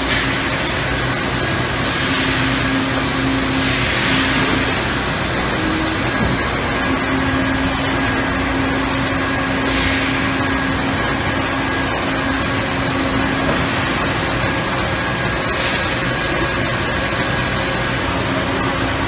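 Krauss-Maffei 1760-ton injection molding machine running: a loud, steady machine noise with a steady high tone and a lower hum that fades in and out.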